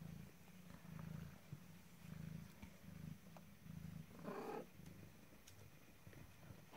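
Mother cat purring faintly in a steady, pulsing rhythm, with a brief higher sound about four seconds in.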